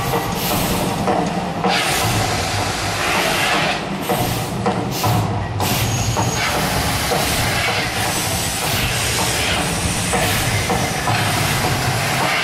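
The Mirage volcano show erupting: a continuous deep rumble with surging hiss from the fire jets and fireballs.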